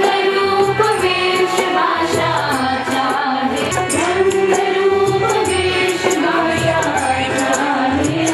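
Indian song: voices singing a melody in long held, bending notes over light percussion strikes.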